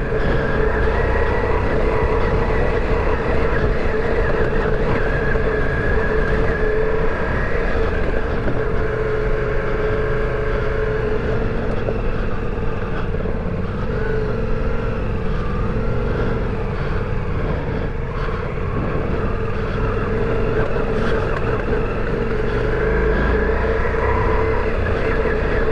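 Ducati Multistrada V4 Rally's V4 engine running steadily as the adventure bike is ridden slowly over a rocky off-road trail, with a dull low rumble underneath.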